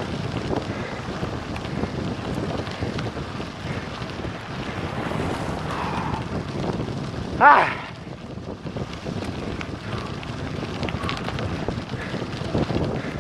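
Wind buffeting the microphone of a helmet-mounted camera on a fast downhill bike ride, over the rumble of tyres on a gravel road. About halfway through comes one short pitched sound that bends up and down in pitch, the loudest moment.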